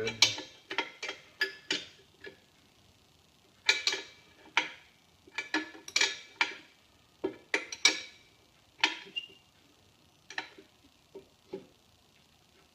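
Metal wrench clinking on a nut and fitting as the nut is snugged up in short turns: sharp irregular metallic clicks in clusters, with short pauses between them.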